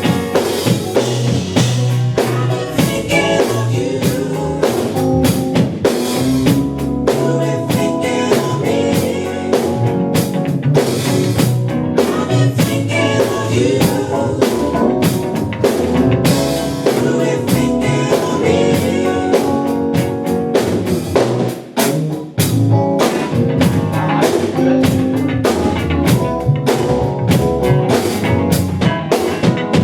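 A live band playing a song during a sound check, with drum kit and guitar; the music dips briefly about two-thirds of the way through.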